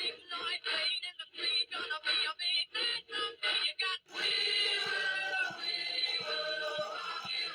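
A synthetic-sounding voice from an electronic talking toy: about four seconds of short, choppy babbled syllables, then a held sung tune moving in steps from note to note.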